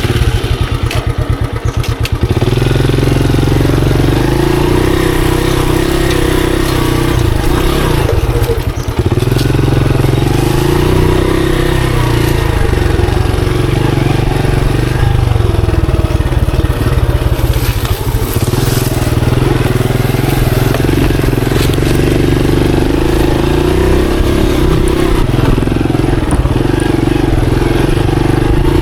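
Monarch Axis 125 motorcycle's 125 cc engine starting, idling with slow even firing for about two seconds, then running steadily as the bike rides off.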